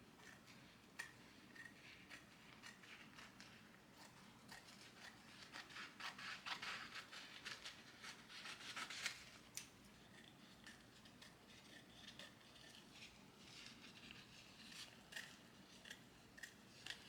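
Faint close-up handling noise: a run of quick small snips, scratches and clicks, busiest a third to halfway through.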